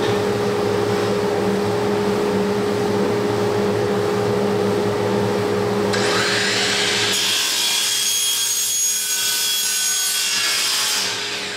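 A power tool running steadily while working on material, with a constant motor hum. About six seconds in, a brighter, hissier sound joins, as the tool bites into the work.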